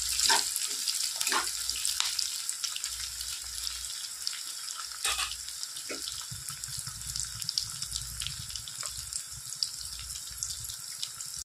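Sliced onions sizzling and crackling in hot oil in a non-stick kadai, frying until they turn golden-brown. A few scrapes of a spatula against the pan sound in the first half.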